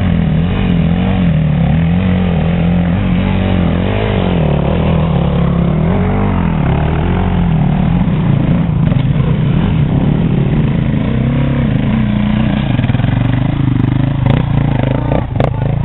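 Several enduro dirt bike engines running together while climbing a steep rocky track, revving up and dropping back as the throttle is worked, so the pitch keeps rising and falling. A few short sharp clicks near the end.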